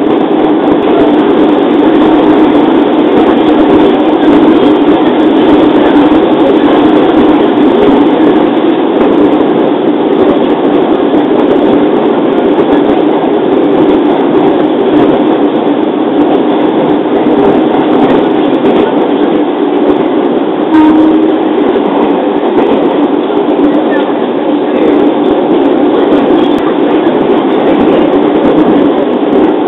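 JR 205-series electric train running at a steady speed, heard from inside the car: a continuous rumble of wheels and running gear. One brief knock comes about two-thirds of the way through.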